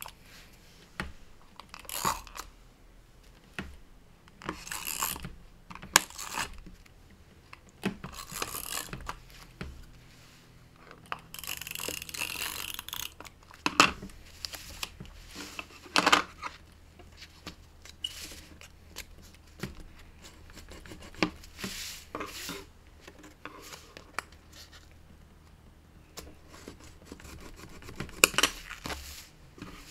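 Paper and card being handled and rubbed down flat by hand: scattered short rustles, taps and rubbing strokes, with one longer rasping paper noise a little before the middle.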